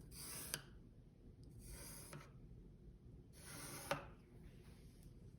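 Pencil drawing three long strokes across paper, each about half a second and ending in a small tap as the lead lifts.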